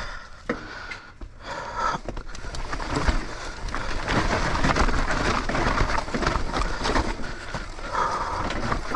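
Trek Slash 7 mountain bike rolling down a loose dirt and stone trail: tyres crunching over the ground and the bike rattling. It gets louder from about two and a half seconds in as the bike picks up speed.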